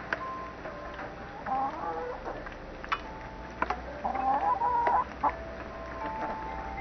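Hens clucking, with two longer, wavering calls about one and a half and four seconds in, and a few sharp clicks in between.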